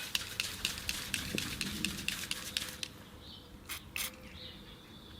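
A rag scrubbing a metal engine part clean in quick, light strokes, about five a second, which stop about three seconds in. Two brief scrapes follow a little before the four-second mark.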